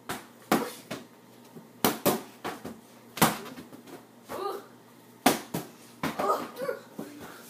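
An inflatable beach ball being hit back and forth by hand: a string of sharp slaps at uneven intervals, about ten in all.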